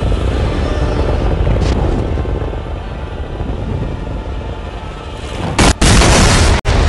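Dubbed-in monster-movie sound effects: a steady, loud rumble of the two Godzillas' atomic-breath beams clashing, then a sudden loud explosion blast about five and a half seconds in.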